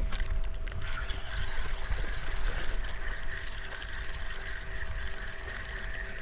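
Spinning reel being cranked to retrieve the line, a steady whirring with fine rapid clicking, over a low rumble.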